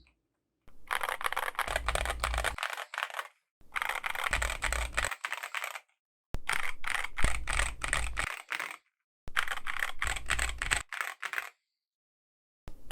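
Fast typing on a KBD67 Lite mechanical keyboard with stock Boba U4T tactile switches, a polycarbonate plate with plate foam and KAT Alpha keycaps. The keystrokes come in four rapid runs of about two seconds each, separated by short pauses, with a quiet stretch near the end.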